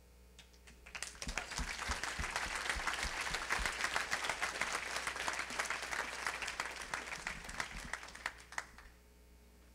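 Audience applauding. It starts about a second in, holds steady and dies away near the end.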